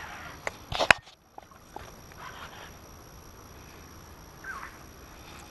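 A sharp click about a second in as a spinnerbait is cast off a baitcasting reel, then quiet outdoor ambience with faint ticks and a short rising chirp near the end.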